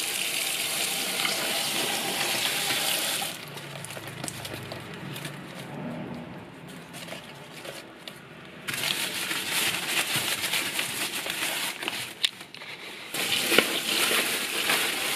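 Kitchen tap running into a stainless steel bowl of dried bamboo leaves as they are soaked and rinsed to soften them. The water sound drops off for about five seconds in the middle and then comes back.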